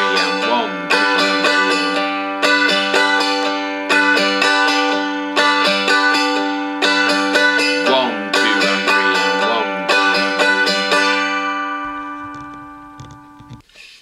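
Seagull M4 spruce-top dulcimer, tuned G-D-G, strummed in a swung waltz rhythm: the thick G string flicked with a fingernail on the first beat, then quick down-up strums on two and three, repeating bar after bar. The last chord rings on and fades away before the end.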